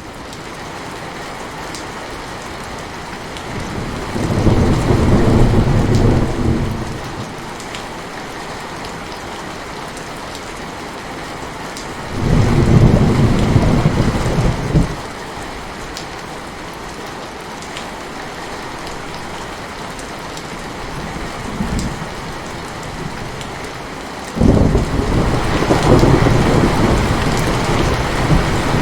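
Steady heavy rain falling, with rolls of thunder rumbling over it three times: about four seconds in, about twelve seconds in, and again from about twenty-four seconds on.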